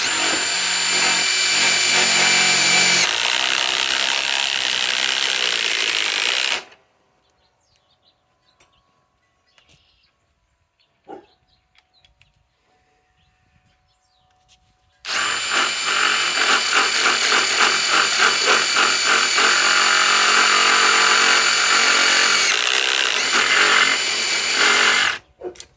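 Ryobi PSBIW25 compact cordless impact wrench running in two long bursts, about six and ten seconds, with a pause between, working into a piece of wood. Through much of the second burst it pulses rapidly and evenly as it hammers.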